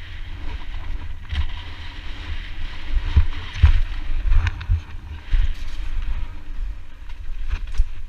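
Wind rumbling on a helmet-mounted GoPro's microphone as a mountain bike rolls fast downhill over rocky trail, with scattered sharp knocks and rattles from the tyres and bike hitting rocks, the loudest a little past three seconds in.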